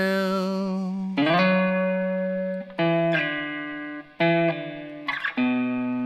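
Blues guitar playing a short instrumental fill of several plucked, ringing notes, some of them sliding up into pitch.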